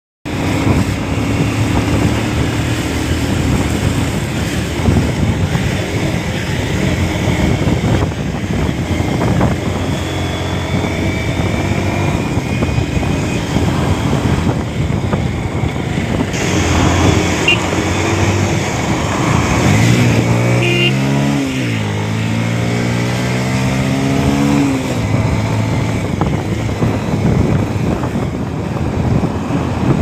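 Motorcycle engine running at riding speed under a steady rush of wind and road noise. About two-thirds of the way through, the engine note climbs sharply, dips, holds higher for a few seconds, then drops back.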